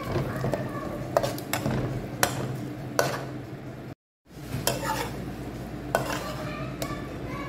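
Metal spatula scraping and clicking against a nonstick wok while stirring a frying onion, tomato and spice mixture, with a light sizzle. The sound drops out briefly about four seconds in, then the spatula clicks on as it turns raw chicken pieces in the pan.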